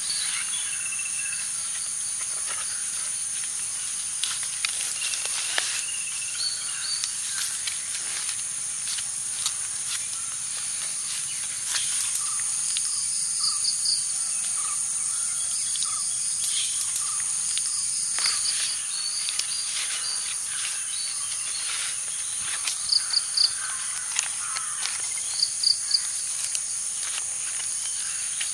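Steady high drone of insects with short bird chirps scattered through, including quick three-note calls twice near the end. Light crackles of banana leaf being folded and tied are heard among them.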